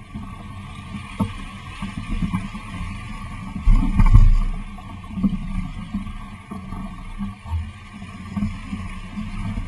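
Wind buffeting the camera microphone while water rushes and splashes along a Laser Bahia dinghy's hull as it sails through chop. The noise swells and eases unevenly, with its strongest gust about four seconds in.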